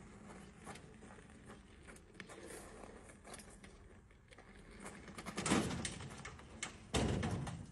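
Wheelbarrow being pushed over a gravel drive: scattered rattles, knocks and crunching, louder about five and a half seconds in and again near the end as it comes closer.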